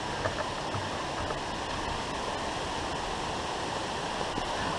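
Steady rushing of flowing water, with a few faint taps and scuffs near the start and again near the end.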